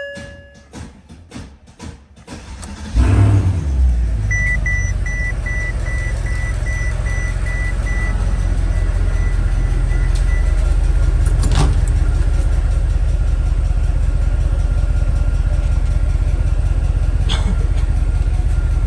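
The 6.2-litre M156 V8 of a 2008 Mercedes S63 cranking on the starter for a couple of seconds, then catching about three seconds in and settling to a steady idle. A dashboard warning chime beeps repeatedly for several seconds after it fires. The slow catch is the hard-start fault the owner has not traced despite a new starter, battery, crankshaft position sensor and injectors.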